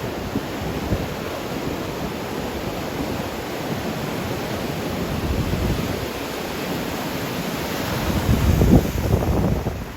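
Ocean surf breaking and washing in steadily as the swell rises ahead of a typhoon, with wind buffeting the microphone. A louder surge of surf and wind comes about eight seconds in.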